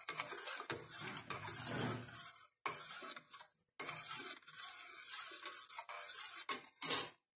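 Metal spoon stirring hibiscus juice in a stainless steel bowl, swishing the liquid and scraping against the steel, in several spells with short breaks, to dissolve the added country sugar, lemon and salt.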